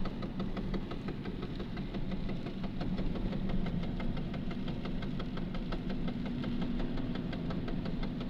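VAZ 2110 driving at speed, heard from inside the car: a steady engine and road hum with a rapid, even knocking over it. This is the knock the owner hears only while driving, louder under throttle and absent at idle or standing still; he does not know its cause.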